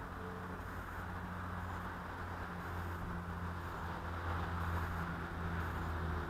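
Steady outdoor background noise: a low rumble with a hiss above it and a faint engine-like drone, growing a little louder past the middle.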